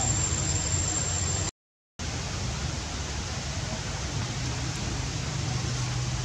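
Steady, even hiss of outdoor background noise with no animal calls. About a second and a half in it cuts to dead silence for half a second, then comes back slightly quieter. A thin high whine heard before the break is gone after it.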